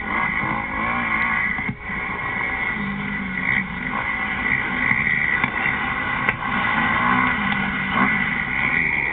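Dirt bike engine revving up and down while racing over a motocross track, heard played back through a screen's speaker and re-recorded, so it sounds muffled.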